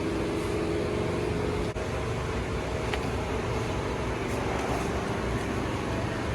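Steady mechanical drone: a constant hum over an even background noise, like a nearby motor running.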